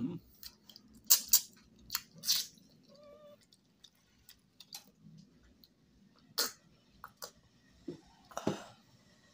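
Sharp, wet mouth smacks and sucking of a person eating fish with his fingers, several in quick succession about a second in and more later. A house cat mews briefly.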